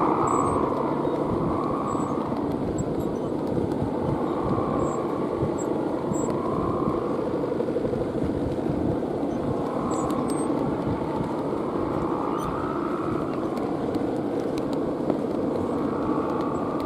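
Wind rushing steadily over the microphone, with a droning hum overhead that swells and fades every second or two, like the bamboo hummers fitted to big Balinese kites.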